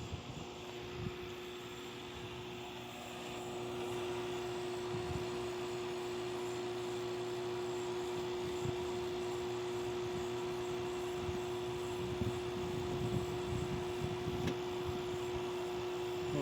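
LG 8,000 BTU portable air conditioner running on low fan speed: a steady hum with one strong tone, growing louder about three seconds in.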